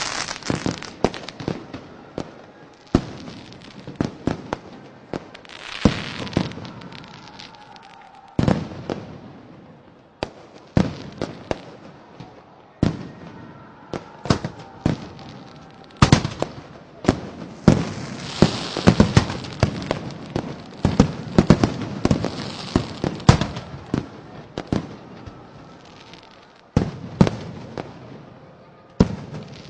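Fireworks and firecrackers going off: a dense, irregular run of sharp bangs and crackles, several a second at the busiest moments, with hissing between them.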